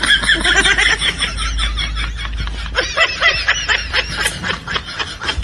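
A man laughing: a long run of rapid, high-pitched snickers.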